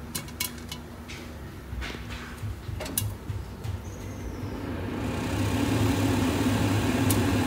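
Popcorn kernels popping in hot ghee in a frying pan under a glass lid: a few sharp single pops at first, then from about halfway a steady sizzling rush with a low hum that grows louder.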